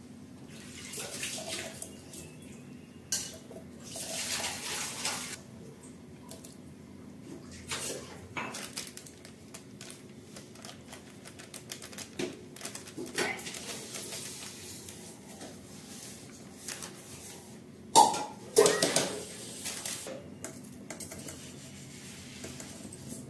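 A steel spoon clinking and scraping against an aluminium pressure cooker while ingredients are added to the liquid inside, with short wet splashes and rustles. The loudest sharp clatter comes about three quarters of the way through.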